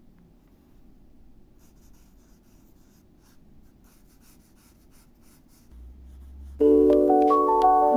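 Faint scratching of a pen drawing on paper in short strokes. About six and a half seconds in, much louder music starts suddenly, with a bright keyboard melody.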